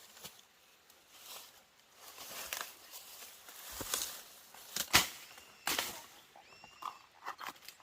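Several scattered knocks and scraping rustles of hand work, the sharpest knock about five seconds in, with a few short chirping calls near the end.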